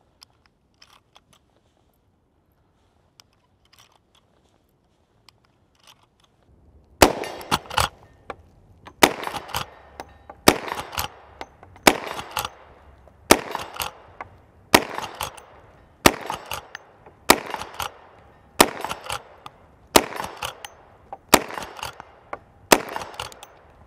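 Faint scattered clicks of the rifle being handled for several seconds, then a lever-action rifle firing about a dozen shots at an even pace of roughly one every second and a half, the lever worked between shots.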